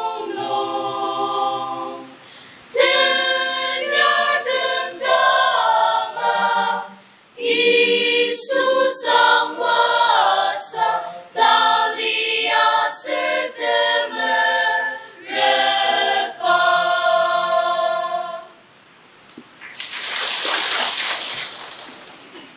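Mixed choir of young men and women singing a hymn in phrases with short breaks, the song ending about three-quarters of the way through. A couple of seconds of even rushing noise follow near the end.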